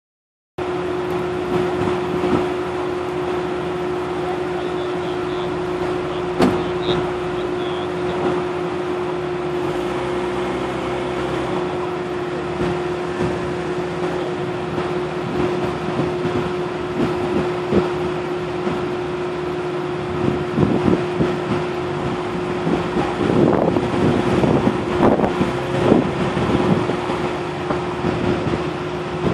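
Off-road vehicle engine running with a steady hum. From about twenty seconds in, rougher uneven knocks and rattles come in as the vehicle moves over the field.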